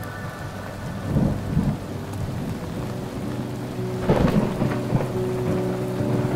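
Thunderstorm: steady rain with rolls of thunder, the loudest about a second in and about four seconds in, over a low held drone.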